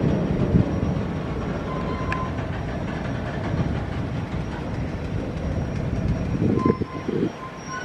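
A train rolling past on the track: a steady rumble of wheels on rail, with a few heavier knocks near the end.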